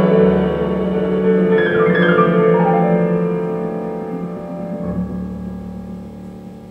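Recorded piano music played back over horn loudspeakers driven by a single-ended 6V6 valve amplifier. A run of notes steps downward about two seconds in, then the final chord dies slowly away.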